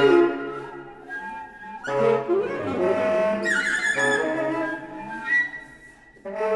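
Contemporary concert music for acoustic instruments: layered sustained tones with slow pitch glides, swelling in waves, thinning almost to nothing near the end, then swelling back in.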